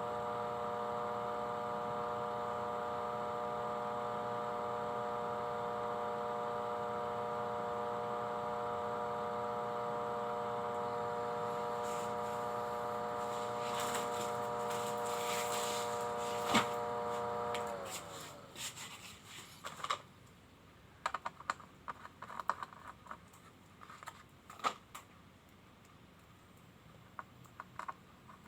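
A small electric motor running with a steady hum. About two-thirds of the way through it slows, its pitch sliding down, and it stops. Scattered light clicks and taps follow.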